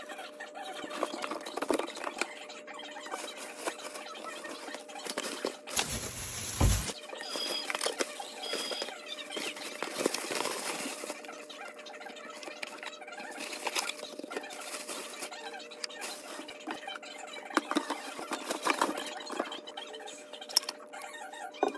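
Scratchy rustling and handling noises as cloth and plastic wrap are handled during a garbage disposal installation, with a brief louder bump about six seconds in and a faint steady hum underneath.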